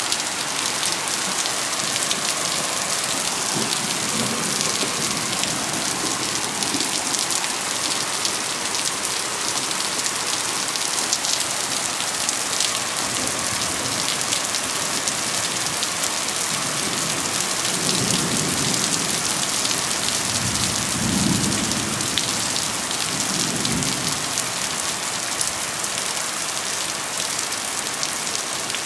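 Steady rain hissing throughout a thunderstorm, with low rumbles of thunder rolling in, strongest a little past the middle.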